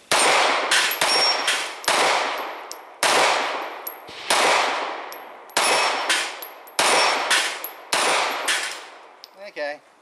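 Smith & Wesson 3913 9mm semi-automatic pistol firing a string of shots, about one a second, each with an echoing tail. Steel plate targets clang and ring as they are hit.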